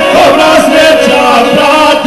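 Two men singing a traditional izvorna folk song into microphones, drawing out long held notes together.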